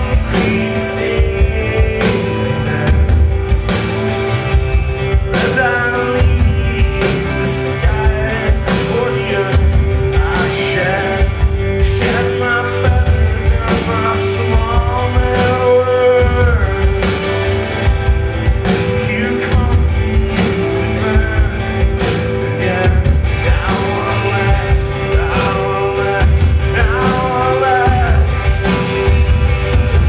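Rock band playing live: distorted electric guitars, bass guitar and a drum kit keeping a steady beat, with a male lead vocal singing over a held note that drones underneath.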